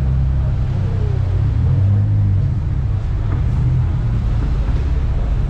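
Steady low rumble of a running car, with no clear revs or changes in speed.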